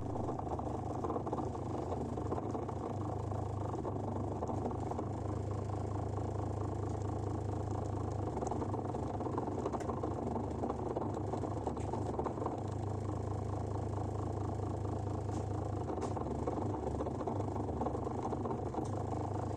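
2004 Zanussi washing machine humming steadily, its drain pump running on without stopping. This is the wrong-sounding hum of a machine that leaves the laundry wet.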